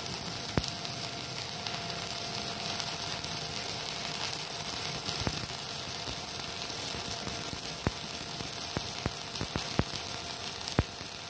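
Stick-welding arc from a Multipro IGBT inverter welder at maximum amperage, burning a 2.6 mm electrode: a steady crackling sizzle with sharp pops, which come more often in the second half.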